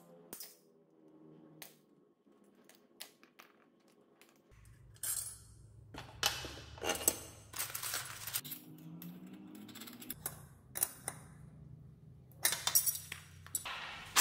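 Loose steel washers and small hardware clinking and rattling in a plastic tub as hands pick through them, with many sharp metallic clicks that come thicker from about five seconds in.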